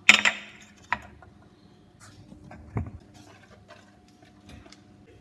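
A metal cupcake tin clatters as it is handled, with a short metallic rattle, followed by a sharp click about a second later, a dull thump near the middle and a few light taps.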